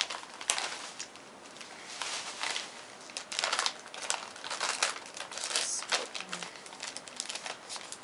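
NatureBox snack pouch crinkling as it is handled and opened, a string of irregular crackles and rustles.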